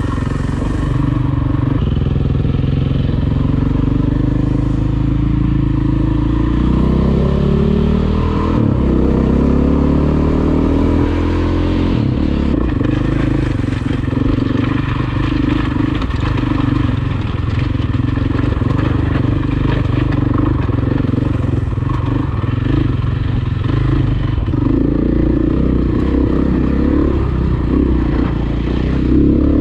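Dirt bike engine running under way on a rough trail. Its pitch rises several times in the middle as the rider opens the throttle, then settles back to a steady drone.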